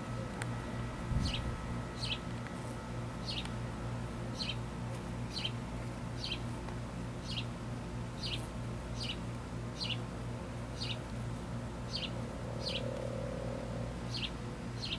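A bird repeating a short, high chirp about once a second, over a steady low hum.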